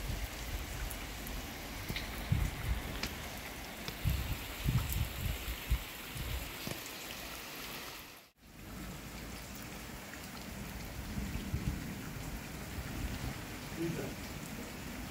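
Steady hiss of heavy rain falling onto a flooded patio and garden pond, with a few low thumps in the first half. The sound cuts out for a moment about eight seconds in.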